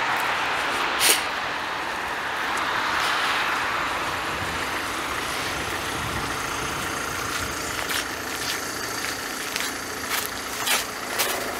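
Road traffic going by: tyre and engine noise of passing vehicles, loudest in the first few seconds and then easing off. Footsteps on pavement come through in the second half, about two steps a second.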